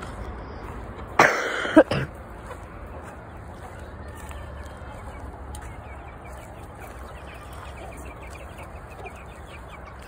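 A short, harsh cough about a second in, then chickens clucking faintly over a low steady background noise.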